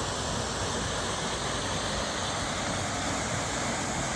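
Waterfall rushing as one steady, even roar of falling water.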